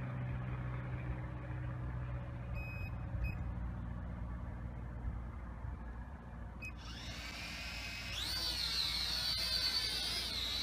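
Small Holy Stone quadcopter's motors spinning up about seven seconds in, their pitch rising and settling into a steady high-pitched propeller whine. Before that, a low steady hum.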